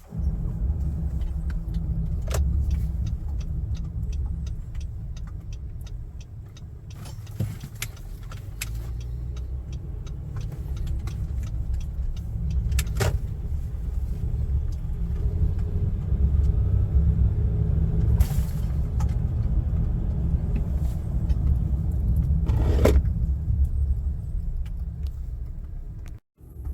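2019 Honda Ridgeline under way: a steady low rumble of engine and road noise, with a few sharp knocks spread through it and a brief run of even ticks early on.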